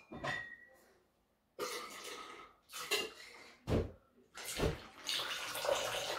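Liquid free-poured from a bottle into a stainless steel cocktail shaker tin, splashing in several spells and running longer near the end. There is a metallic clink of the tin at the very start, and two thumps come around the middle as the bottle is handled.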